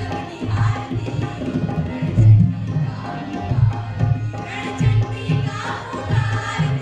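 A group of women singing a Gujarati folk song together, over a rhythmic hand-drum beat with deep, repeated strokes.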